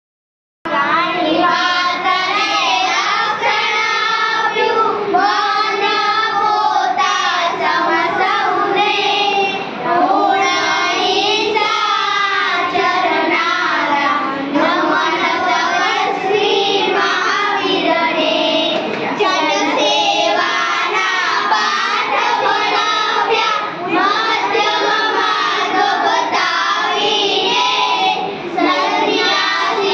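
Four young girls singing a Gujarati poem together, unaccompanied, starting about half a second in.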